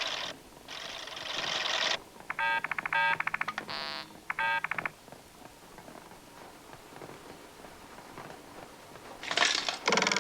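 Cartoon sound effects. First comes a steady mechanical clatter of the factory machine for about two seconds. Then a few seconds of rapid warbling electronic beeps, then quiet, then a short harsh burst near the end.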